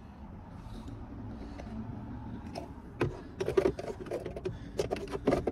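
A hand tool clicking and scraping against a screw and the plastic dash trim: a run of irregular sharp clicks and rattles that starts about three seconds in, after a few seconds of low background.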